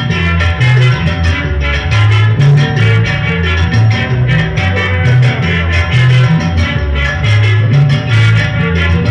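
Loud Latin dance music played over a sonidero sound system: a heavy, moving bass line under guitar and steady rattle-type percussion.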